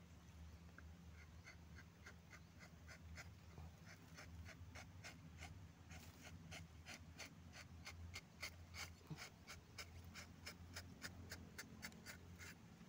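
A quick series of faint clicks, about three a second at first and faster after the middle, over a low steady hum.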